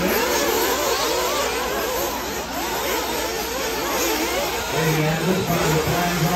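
Several 1/8-scale RC buggies' small nitro engines screaming at once, each revving up and falling back over and over as the cars race around the track, their pitches sliding over one another.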